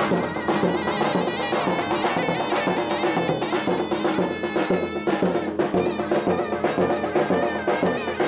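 Traditional Turkish folk music: a reedy zurna playing a lively melody over a steady davul drum beat.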